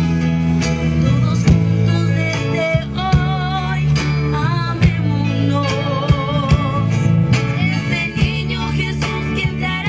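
Live band music: guitar and bass chords under sharp percussion hits, with a singing voice with vibrato coming in about three seconds in.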